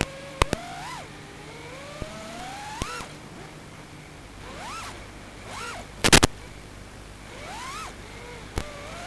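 Small electric motors whining, the pitch climbing over a second or two and then dropping away, several times over. Sharp clicks come here and there, with a loud double knock about six seconds in.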